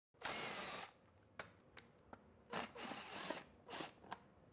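Cordless drill-driver with a 4 mm Allen bit whirring in a short burst, backing out an air filter cover screw. A few light clicks and two more short bursts of tool and handling noise follow.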